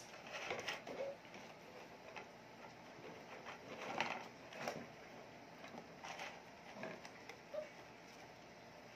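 German Shepherd puppies eating from plastic bowls on concrete: faint scattered eating noises and knocks of the bowls, the loudest a few seconds in. A couple of brief faint squeaks, likely from the puppies.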